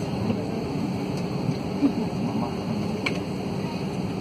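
Steady cabin noise of an Airbus A320-family airliner taxiing: a low engine and air-system hum, with a faint click about three seconds in.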